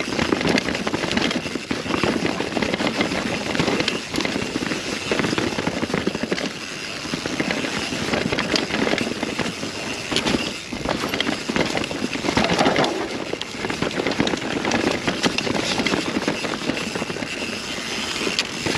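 Mountain bike descending a dirt trail: rushing wind on the camera and tyre rumble, with the bike clattering over bumps in frequent short knocks and the loudness surging and dropping as the terrain changes.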